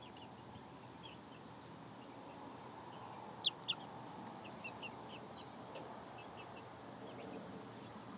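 Young pullets peeping and chirping in short high calls, with two sharp, louder peeps in quick succession about three and a half seconds in and another a couple of seconds later.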